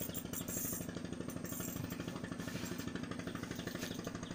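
A fishing boat's inboard engine running steadily, with a rapid, even chugging and a low hum.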